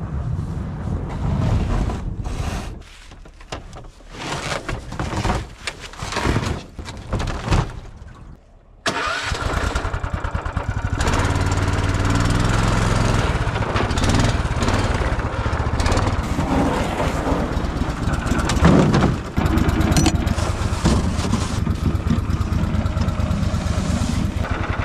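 A pickup truck driving on snow for the first couple of seconds, then a quieter stretch of scattered knocks and handling noises. About nine seconds in, the small petrol engine of a Snowdog compact tracked snow machine comes in abruptly and keeps running steadily.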